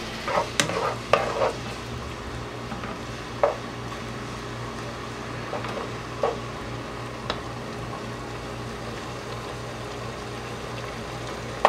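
Diced chicken and vegetables sizzling steadily in a pot on the stove, with a spoon stirring. The spoon knocks and scrapes against the pot several times in the first second and a half, then only now and then.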